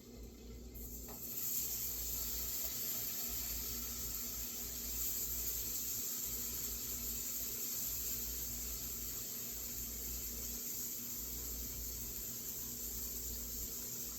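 Bacon sizzling in a hot frying pan. The hiss starts suddenly about a second in, as the bacon goes into the pan, and then holds steady.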